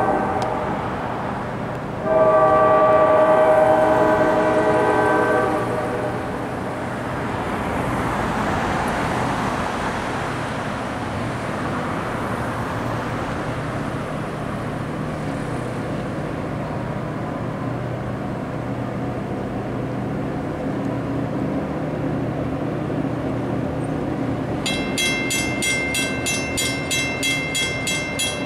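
Freight train's diesel locomotive sounding its multi-tone air horn: a blast ending at the start and a longer one from about two seconds in. A steady low rumble follows as the train approaches. Near the end a grade-crossing bell starts ringing rapidly.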